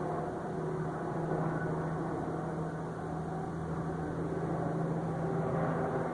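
An unidentified steady droning noise with one held low tone, going on without a break.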